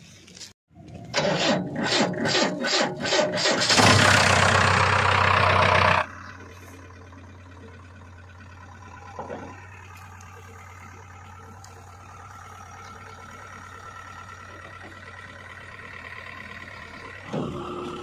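JCB 3DX backhoe loader's diesel engine cranking with a rapid chugging for a couple of seconds, then catching and running loud and steady. About six seconds in it drops abruptly to a quieter steady running hum.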